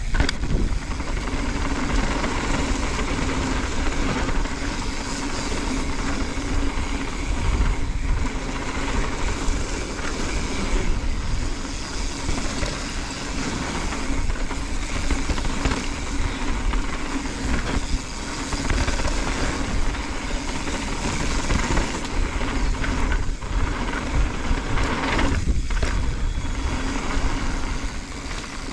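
Wind rushing over a handlebar-mounted action camera's microphone as a mountain bike descends fast, with its tyres rolling over dirt and loose gravel.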